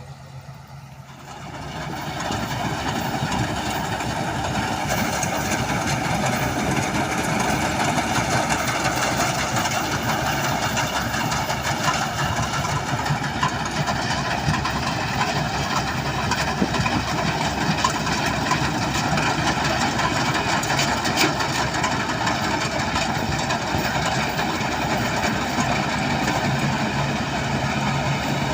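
Rice combine harvester's engine running steadily. It rises quickly to a much louder level about a second and a half in, then holds steady.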